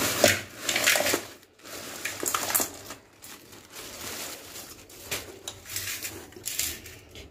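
Irregular bursts of crackling and rustling as a bag of freshly bought crabs is handled.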